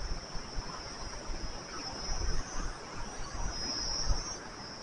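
Steady high-pitched drone of insects in the trees over the hiss of fast water running through the river mouth, with irregular low thumps and rumble on the microphone.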